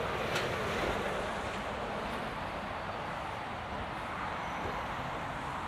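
Street traffic: passing vehicles as a steady wash of engine and tyre noise, with one sharp click about half a second in.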